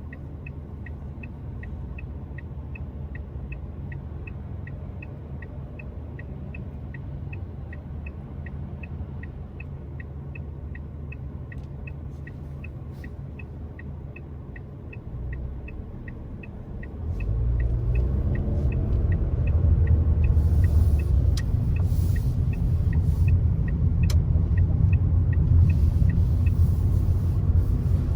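Car heard from inside the cabin: a quiet low rumble with the turn-signal indicator ticking steadily, then about two-thirds in the engine gets sharply louder as the car pulls away and accelerates. The ticking stops near the end as the indicator cancels.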